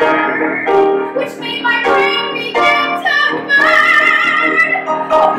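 A woman singing a musical-theatre song with live piano accompaniment, the piano striking chords about twice a second. About three and a half seconds in she holds a high note with vibrato for over a second.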